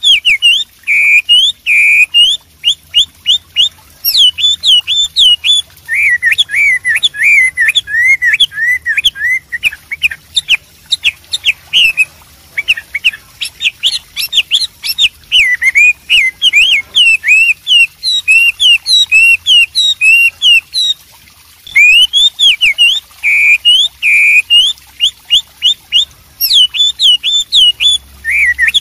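Chinese hwamei (melodious laughingthrush) in full song: a loud, rapid run of varied whistled phrases, repeated notes and up-and-down slurs, with one brief pause about three quarters of the way through.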